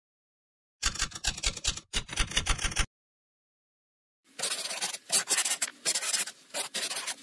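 Pen scratching across paper in quick strokes: two short runs about a second in, then a longer, brighter run from about four seconds in.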